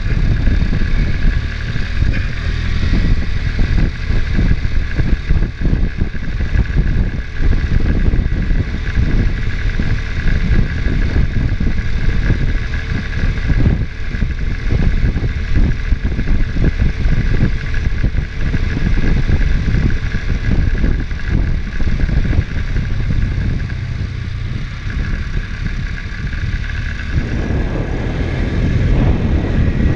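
ATV engine running under way over a rough trail, with irregular knocks and rattles from the bumps. A faint steady whine sits above the engine, and near the end the engine sound grows fuller as it picks up.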